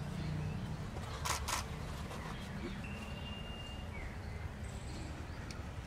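Quiet outdoor background with a steady low rumble and two brief rustling noises about a second and a half in. Around three seconds in comes one thin held whistle-like call that ends in a short falling glide.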